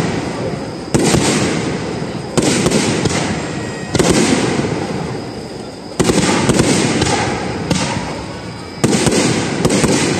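Aerial fireworks bursting at a fireworks display: about five loud bangs a second or two apart, each trailing off in a rumbling crackle, with a few sharper cracks near the end.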